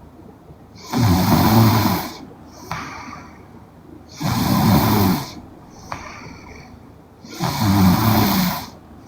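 A young woman snoring in her sleep: three snores about three seconds apart, each a low rattling breath lasting about a second, with softer breathing between them.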